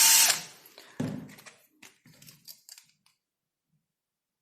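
A small power drill running at a steady pitch cuts off a fraction of a second in, followed about a second later by a single knock and a few light handling clicks.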